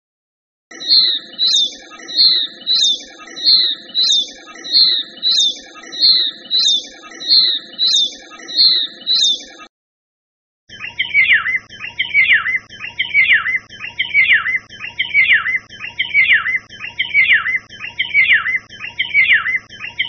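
Oriental white-eye calling: a short high call repeated about three times every two seconds. After a pause of about a second, it gives way to a Eurasian golden oriole calling in quick, repeated phrases.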